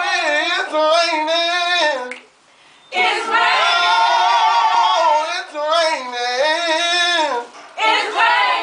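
Women singing a gospel song in long held, gliding phrases, pausing briefly about two seconds in and again near the end.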